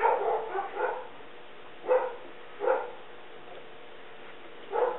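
A dog barking in short runs: a quick volley of barks at the start, two single barks in the middle, then another volley near the end. These are alarm barks at someone walking by.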